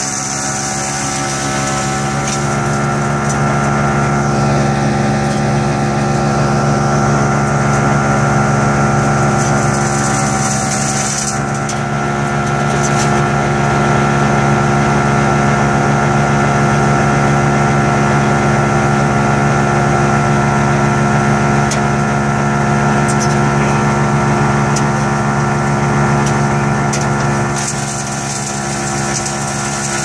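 Agrinova Zakandra drum wood chipper running steadily under load while shredding pine branches and needles, a constant engine-and-drum hum with a few sharp cracks. The level drops a little near the end.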